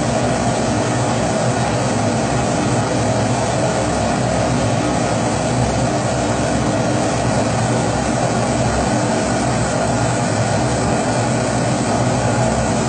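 Pressurized kerosene (Primus-type) stove burning at full flame: a loud, steady rushing noise of the vaporized fuel jetting through the burner, unbroken and unchanging.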